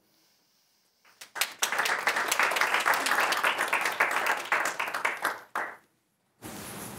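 Audience applauding: many hands clapping, starting about a second in and dying away after about four and a half seconds.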